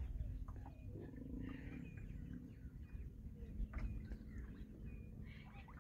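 A flock of waterbirds calling faintly across open water: a scatter of short calls, some pitched and a few gliding, over a low rumble of wind and water.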